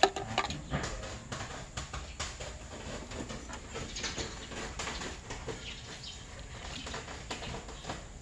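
A string of irregular light clicks and taps, with a sharp knock right at the start, over a low steady rumble.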